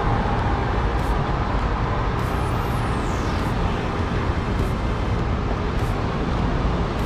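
Steady city street traffic noise from passing vehicles, with a few faint high sounds falling in pitch.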